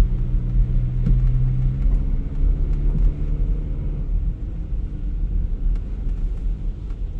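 Car engine running cold with the transmission in Drive and the throttle pressed, giving a low droning hum that slowly rises in pitch about two seconds in. The owner takes it for an abnormal noise: it appears only in gear, not when idling in neutral, and was not there when the car was new.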